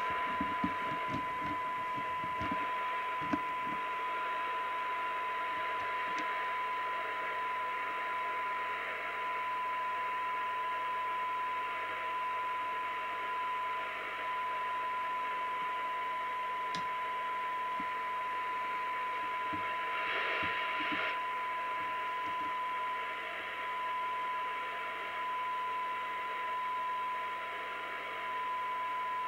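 Audioline PT340 CB radio's loudspeaker playing a received steady 1 kHz test tone with a hiss of noise over it. The signal is a weak one of about 1 microvolt from a signal generator, and the receiver is being aligned for better sensitivity. A few small clicks come in the first few seconds.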